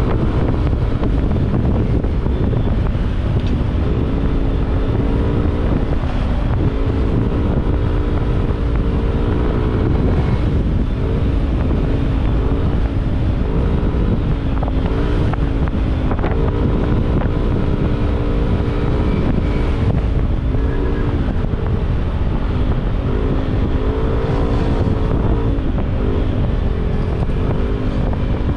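Yamaha NMAX single-cylinder scooter engine through a GP2 Villain aftermarket muffler, running on the road with its pitch rising and falling as the throttle opens and closes, under heavy wind noise on the microphone. The owner says this muffler has turned tinny ('tunog lata') and rattles, blaming its riveted internals.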